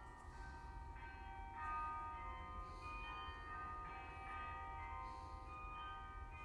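Carillon bells of Bok Tower playing a slow melody, a new bell note struck every half second to a second, each ringing on, over a low steady rumble.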